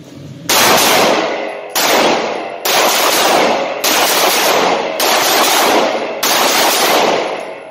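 Six shots from a 9mm micro-compact pistol, spaced about a second apart, each ringing out in the concrete indoor range until the next.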